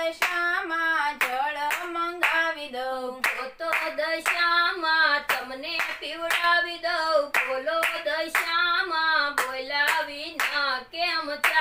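Gujarati devotional song (bhajan) to Dashama sung to steady hand clapping, about two claps a second. Singing and clapping stop suddenly at the end.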